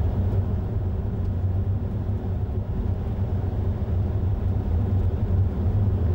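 Steady low rumble of engine and tyres on the road, heard from inside a moving car's cabin.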